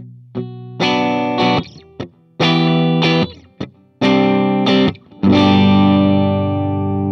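G&L ASAT Classic electric guitar on its middle pickup setting (neck humbucker and bridge single coil together), played clean through a Vox AC30 amp and close-miked with a Shure SM57. Chords are struck in short, choppy bursts, then a final chord is struck a little over five seconds in and left to ring.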